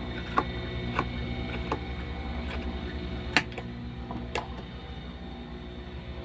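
Scissors snipping off excess thread and fabric at a T-shirt sleeve seam: six sharp snips at uneven intervals in the first four and a half seconds, the loudest about three and a half seconds in, over a steady low hum.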